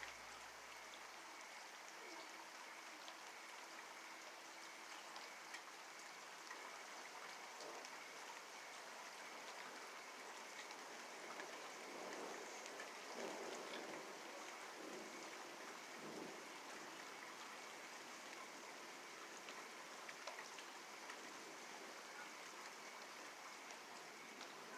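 Faint, steady rain falling during a storm, with a slight swell about halfway through.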